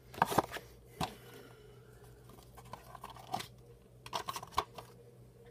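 Trading cards and their packaging being handled and torn open: a few short crunching, tearing noises, loudest near the start, another about a second in and a cluster about four seconds in.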